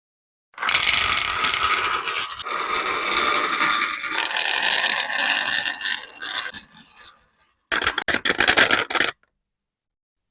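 Marbles rolling and scraping down a toy marble-run track, starting abruptly and fading out about seven seconds in. Shortly after comes a quick burst of rapid clicking clatter lasting about a second and a half.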